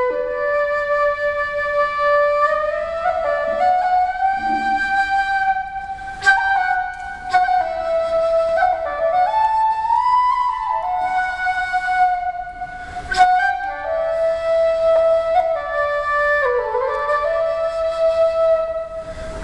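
Irish flute playing a slow solo melody of long held notes, with slides in pitch between them.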